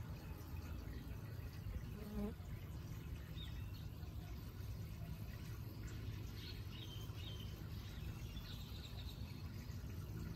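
Hummingbird's wings humming as it hovers and feeds at a hanging feeder, with a few short high chirps.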